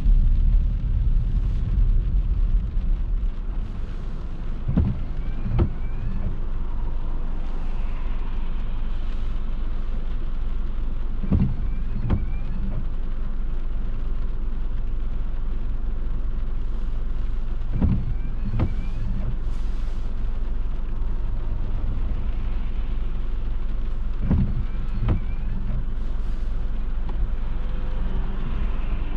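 A car driving, heard from inside the cabin: steady low road and engine rumble, broken four times by a pair of short thumps less than a second apart, the pairs coming about every six seconds.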